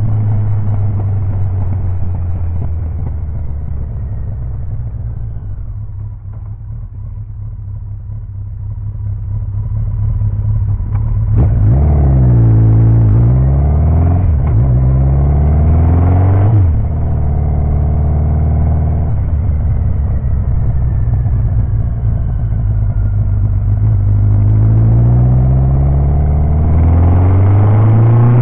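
Kawasaki 1000 GTR's inline-four engine running under way. It holds a steady note, eases off for a few seconds, then its pitch swoops down and back up sharply a few times around the middle, and near the end it climbs steadily as the bike accelerates.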